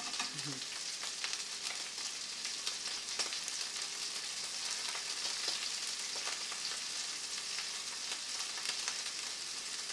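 Prawns sizzling in butter, olive oil and garlic in a stainless steel sauté pan over high heat: a steady frying hiss with scattered small pops and crackles.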